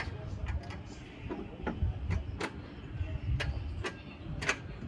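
Mazda Miata driving: a steady low engine and road rumble, with sharp, irregularly spaced clicks and knocks over it.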